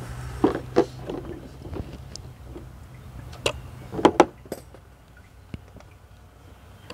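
Metal clicks and clinks of the thermostat housing bolts being handled and threaded in by hand on a Jeep 4.0L inline-six. There are two sharp taps about half a second in and a quick cluster of clinks around three and a half to four seconds in.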